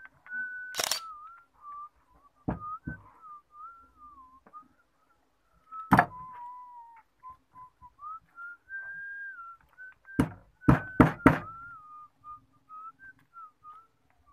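A person whistling a slow, wandering tune, with sharp hammer taps: one about a second in, two near three seconds, one near six seconds, and a quick run of four between ten and eleven and a half seconds.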